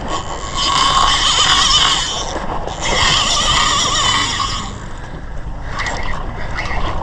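Spinning reel whining with a warbling tone under the load of a hooked fish, in two stretches of about two seconds each and a weaker one near the end, over steady wind and sea noise.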